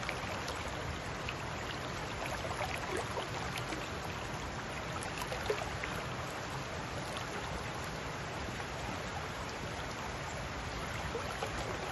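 Shallow river flowing over rocks: a steady rush of running water with small brief splashes and gurgles.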